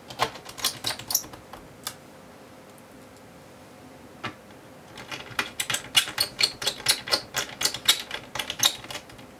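Small Phillips screwdriver and screws on a laptop's metal keyboard plate, making sharp clicks and taps as screws are set and driven in: a handful in the first two seconds, then a dense run of quick clicks from about five seconds in.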